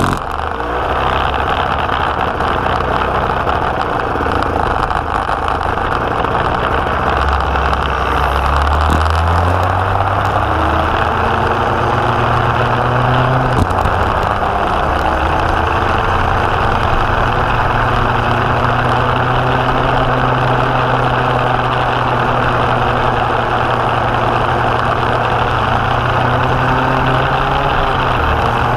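Go-kart engine running hard on track, its pitch climbing as the kart accelerates out of a corner about eight to ten seconds in, then held high and steady along the straight under an even hiss.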